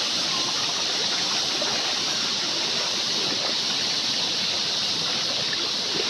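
Shallow rocky river flowing over and around boulders: a steady, even rush of water with a bright hiss that does not change.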